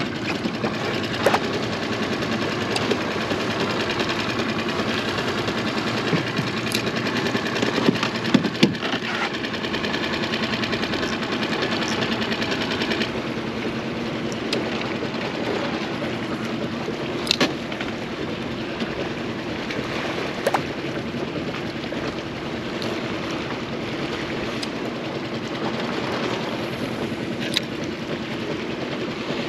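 Small outboard motor of a mini boat running steadily, its higher tones dropping away about halfway through, with a few sharp knocks on the hull.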